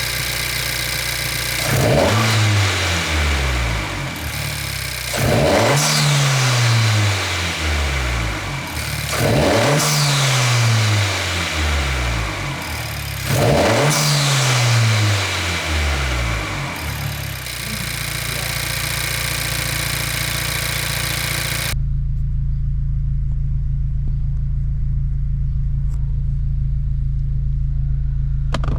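Honda Civic 1.5-litre turbocharged four-cylinder revved four times, each blip falling back to idle, then idling steadily with a 27WON larger turbo inlet pipe fitted. About three-quarters through, the sound changes abruptly to a steady low hum.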